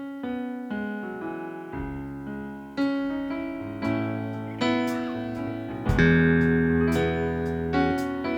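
Electric piano playing slow sustained chords, struck about once a second, growing louder about three and six seconds in.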